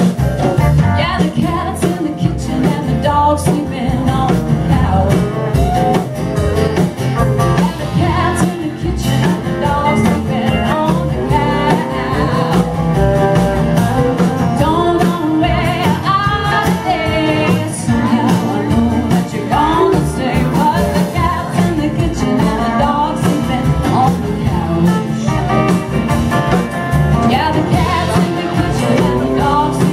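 Live band music: a woman singing lead over strummed acoustic guitar and drums, playing steadily throughout.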